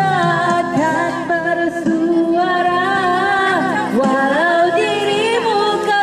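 Music: a Malay-language love song, a voice singing long held, wavering notes over instrumental accompaniment.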